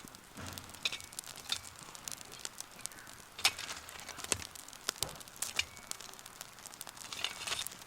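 Wood campfire crackling, with irregular sharp pops; the loudest comes about three and a half seconds in.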